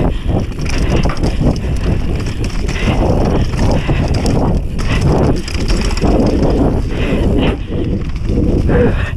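Wind buffeting the microphone of a camera on a mountain bike riding fast downhill, with the tyres rolling over a dirt trail and irregular knocks and rattles from bumps.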